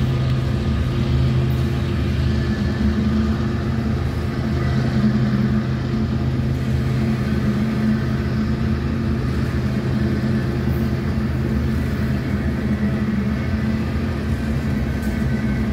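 Covered hopper cars of a slow, heavy freight train rolling past: a steady rumble of wheels on rail with a low, even drone.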